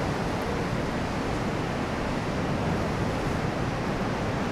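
Stormy ocean surf breaking on a rocky shore, a steady, even rush of waves with no single crash standing out, and wind blowing across the microphone.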